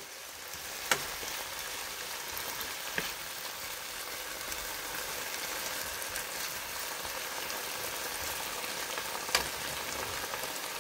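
Chicken breasts, mushrooms, onions and bell peppers sizzling in a nonstick frying pan while a wooden spatula stirs them. A few sharp clicks sound as the spatula knocks the pan, about a second in, at three seconds and near the end.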